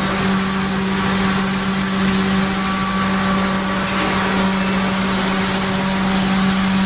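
CNC wood router running steadily: a constant hum over an even wash of machining noise.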